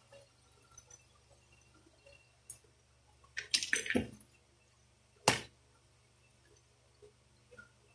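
Parts of a disassembled Daisy Power Line 1200 air pistol being handled on a tabletop: a short clatter of clicks and knocks about three and a half seconds in as the pistol is laid down, then a single sharp click about a second later.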